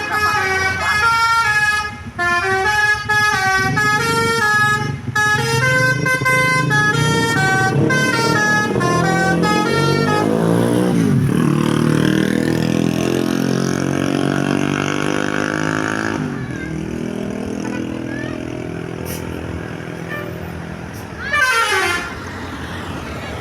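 A bus's telolet musical air horn (Basuri horn) plays a quick tune of short stepped notes for about ten seconds. The bus then goes by with its engine loud, the pitch sweeping down as it passes. A brief falling horn toot sounds near the end.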